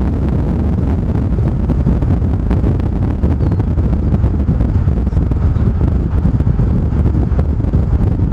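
Loud, steady low rumble of wind buffeting the microphone mixed with road noise from a moving vehicle.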